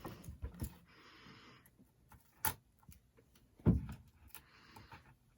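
Handling an adhesive LED light strip: two short stretches of rustling, about a second in and near the end, with scattered small clicks and one low thump a little past halfway.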